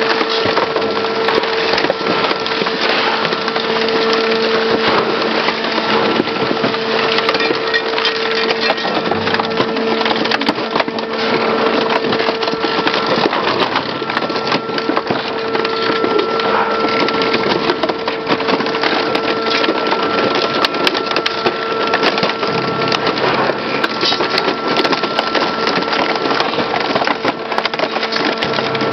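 Industrial shredder's rotors tearing into a car body: a steady, dense crackle of metal and glass cracking and snapping, over the machine's steady drive hum.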